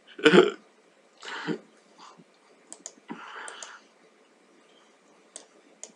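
A man's brief laugh, then a couple of soft breathy sounds and a few scattered sharp clicks.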